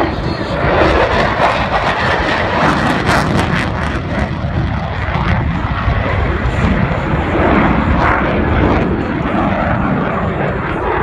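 F-16 fighter jet noise: a loud, sustained roar that wavers in strength, with a stretch of crackle about two to four seconds in.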